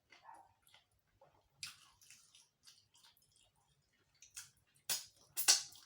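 Close-miked wet chewing and lip smacks from someone eating yam and egg stew: a scatter of short clicks and squelches, with the loudest few coming close together near the end.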